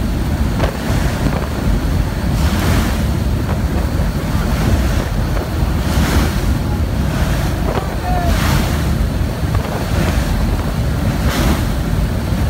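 Airstream rushing through the open door of an aircraft in flight, mixed with the drone of its engines, buffeting the microphone and surging every two or three seconds.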